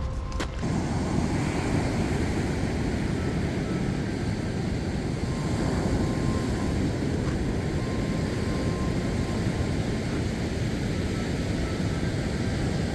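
Steady low rumbling noise with no pauses.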